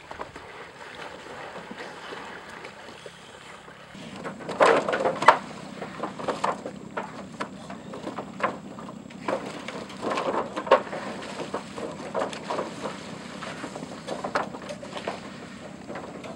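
Swamp water buffalo hooves knocking irregularly on a wooden log ramp, with water splashing, as the buffalo climb out of the lake into their pen. A steady rush of wind and water lies under it; the knocks start about four seconds in and are loudest just after.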